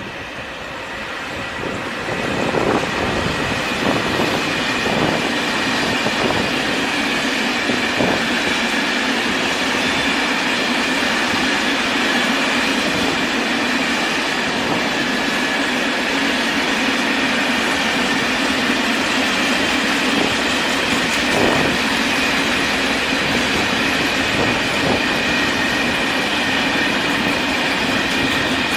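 Container freight train rolling past at steady speed: steel wheels running on the rails with a low hum, steady high ringing tones, and a few clicks over the rail joints. It builds up over the first two seconds as the locomotive arrives, then holds steady as the wagons pass.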